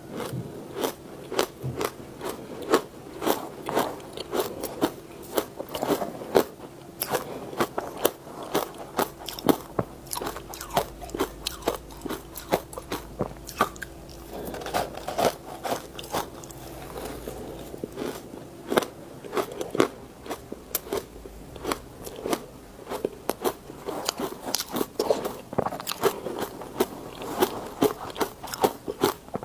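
A person biting and chewing ice close to the microphone: an irregular run of sharp crunches and cracks, several a second.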